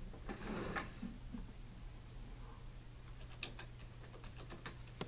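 Faint handling noise: a soft rustle in the first second, then a quick run of light clicks in the second half.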